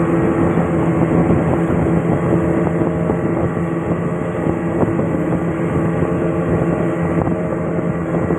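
Small boat's engine running steadily under way, an even engine drone over wind and water noise.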